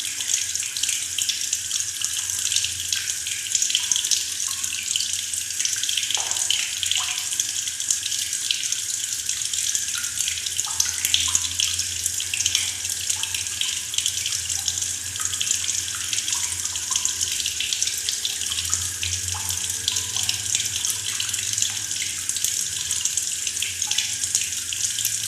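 Tap water running steadily into a black plastic bucket, splashing and gurgling, with scattered small bubbling blips over the steady rush.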